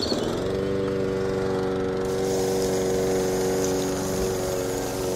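Small electric motor of a miniature model rice thresher switched on and spinning up, then running steadily with a whine as it turns the threshing drum.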